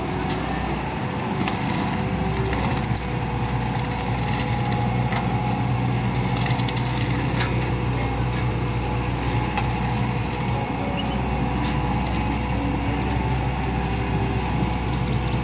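Hitachi Zaxis 110 excavator running a hydraulic mulcher head that grinds already-chipped oil palm trunk material into the soil. The engine and spinning rotor make a steady hum, broken by scattered sharp cracks of wood and debris being shredded.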